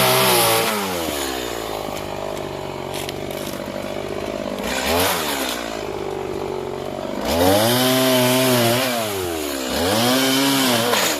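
Stihl MS 180 two-stroke chainsaw running, its engine revved up and let back down: high revs at the start, dropping to a lower steady run, a short blip about five seconds in, then two long high-rev runs near the end.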